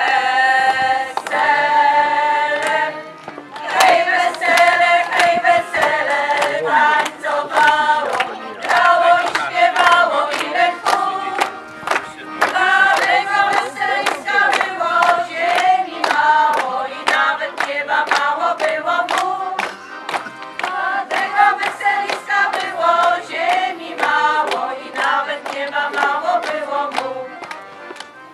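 Women's folk choir singing a Polish song in harmony with accordion accompaniment, opening on a long held chord. A steady beat of sharp taps runs under the singing.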